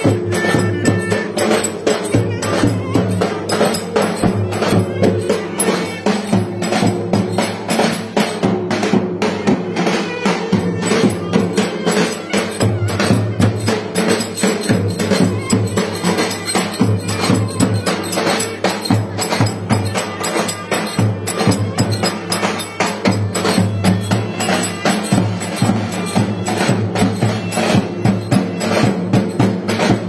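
Turkish folk music played live outdoors: several davul bass drums beaten together in a steady rhythm, with a reed wind instrument playing the melody over them.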